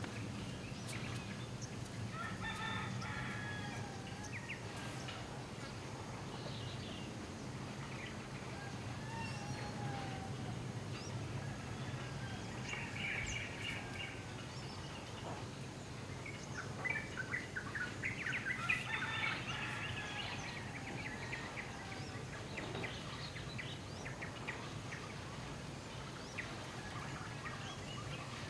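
Chickens and a rooster calling several times, with small birds chirping, over a steady low hum of outdoor background noise. The calls come in a few seconds in, again around the middle, and most densely about two-thirds of the way through.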